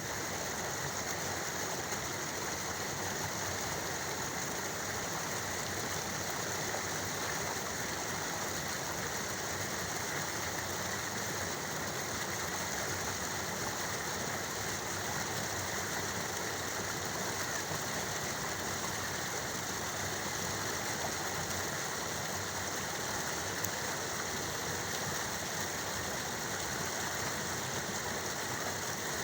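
Waterfall and flowing water: a steady, even rush of falling water that does not change.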